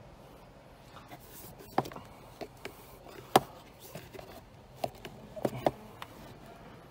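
A handful of sharp plastic clicks and knocks from hands working the clipped-in side trim panel in a Ford Fiesta's passenger footwell. The loudest knock comes about halfway through, with a quick cluster of clicks near the end.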